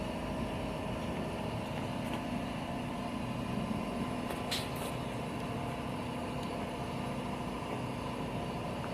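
Steady mechanical hum with constant tones, and a couple of faint clicks about four and a half seconds in.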